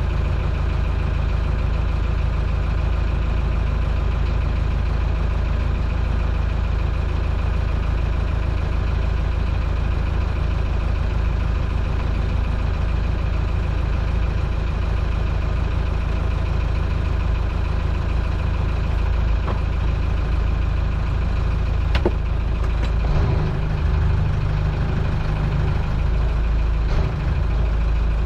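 Towboat's engine idling steadily, its low note growing stronger and rougher about two-thirds of the way through, with a single sharp click shortly before.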